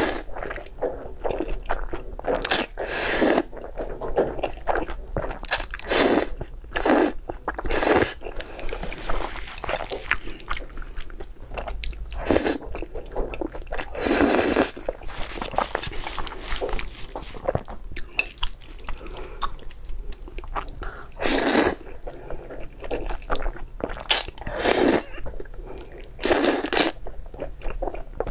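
Close-miked eating of spicy fire noodles: loud slurps of noodles every few seconds, with wet chewing and crunching in between.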